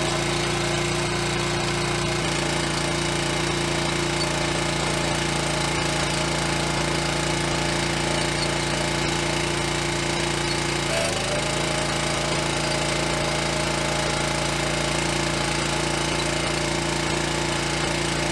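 Barreto walk-behind trencher running steadily under load as its digging chain cuts a trench through clay soil, with a brief wobble in the engine's pitch about eleven seconds in.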